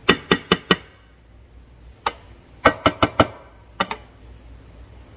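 Wooden spoon stirring vegetables and knocking against a square metal frying pan: a quick run of four sharp taps at the start, then another cluster of about five or six taps a couple of seconds in.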